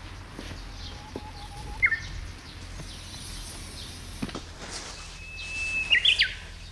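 Wild songbird singing clear whistled notes. A sharp chirp comes about two seconds in, and near the end a longer held whistle breaks into a quick flourish of higher notes.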